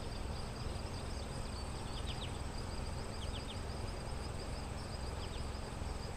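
Outdoor ambience of insects trilling steadily, with short high chirps scattered through it, over a low uneven rumble.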